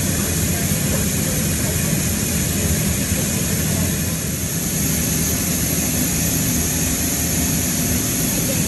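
Steady, loud drone of a military jet transport aircraft heard from inside its cargo hold: a low engine hum under an even rush of noise, holding level throughout.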